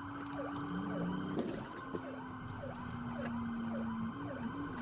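Police car sirens sounding during a pursuit: a fast repeating up-and-down yelp over a lower held tone that starts to waver near the end.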